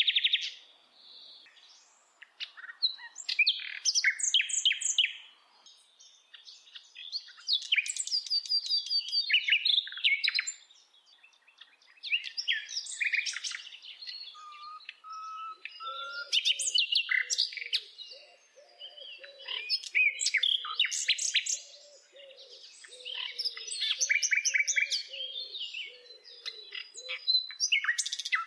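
A bird singing: phrases of varied chirps and rapid trills a few seconds long, repeated after short pauses. From about halfway through, a lower wavering note runs beneath the song.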